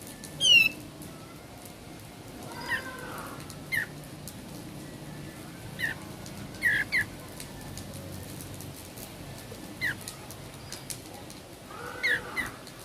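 Songbird calls: short, sharp, falling chirps at irregular intervals, the loudest a quick falling run of notes about half a second in, with doubled chirps near seven and twelve seconds in.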